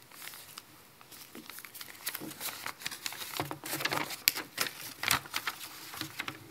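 Sheets of paper rustling and crinkling as they are unfolded and handled close to a podium microphone: a quick, irregular run of short crackles.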